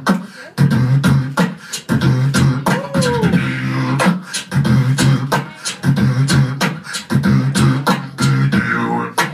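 Live beatboxing by a duo into handheld microphones: a steady beat of sharp vocal kick and snare sounds over a low hummed bass, with a short falling vocal glide about three seconds in.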